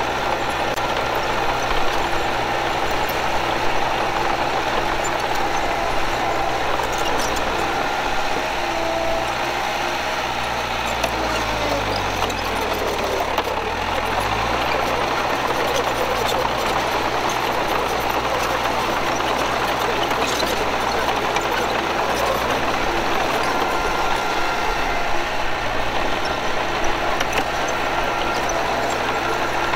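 Bulldozer's diesel engine running steadily under work. About halfway through its pitch sinks over a couple of seconds and then comes quickly back up.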